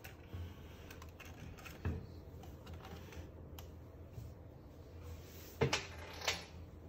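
Light, scattered clicks of a digital counting scale's keypad buttons being pressed, then two louder clatters about five and a half and six seconds in as small steel nails are set down on the scale's platform.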